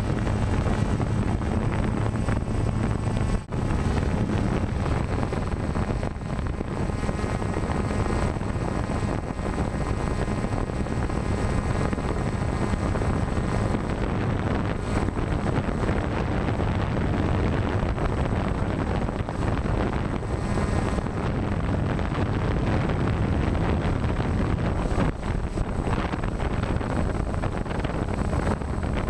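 DJI Phantom quadcopter's motors and propellers running steadily in flight, heard through the GoPro on its own gimbal, with wind rushing over the microphone.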